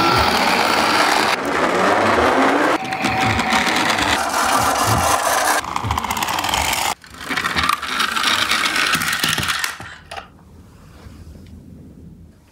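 Toy garbage trucks rolling across a wooden tabletop: a loud whirring rattle of plastic wheels and gearing, in several short runs that change abruptly one to the next. It drops much quieter for the last few seconds.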